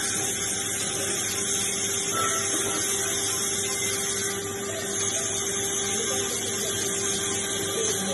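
Stick-welding arc crackling and sizzling steadily as the electrode burns, with a steady hum underneath.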